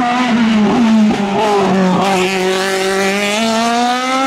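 Single-seater race car engine at high revs. Its pitch eases down through the hairpin to a low point about two seconds in, then climbs steadily as the car accelerates away.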